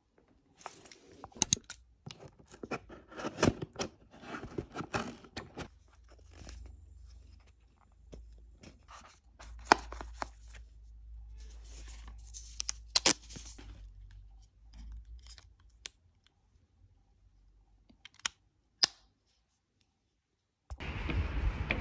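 Tearing and crinkling of handled material, with many sharp clicks, then a few isolated clicks.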